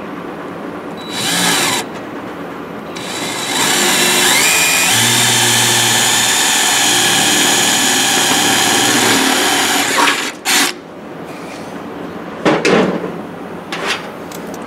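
Cordless drill driving a bolt to mount a sunshade bracket on a tractor fender: a short spin about a second in, then a long run of about six seconds whose pitch winds up near its start and which stops suddenly, followed by a brief blip.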